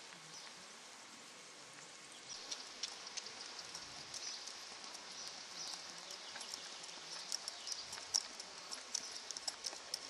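A two-year-old reining horse's hooves striking the sand of an arena: an irregular patter of soft clicks that grows louder about two seconds in, over a steady hiss.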